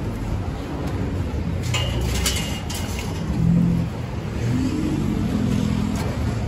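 Steady rumble of road traffic, swelling as a vehicle goes by about halfway through, with a few metallic clinks of a wire grilling basket being handled about two seconds in.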